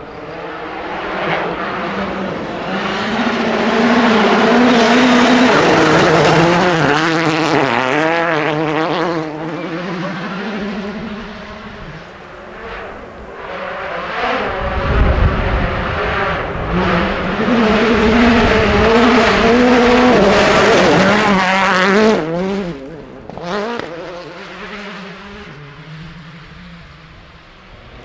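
Two rally cars at full throttle on a gravel stage, one after the other. Each engine note rises and falls as it revs through the gears, loudest as the car passes close. A few sharp cracks follow as the second car goes away.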